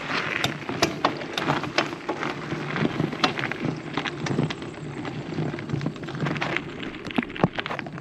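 Bicycle tyres rolling over rough, cracked asphalt and grit: a steady rumble with many small crackles and pops.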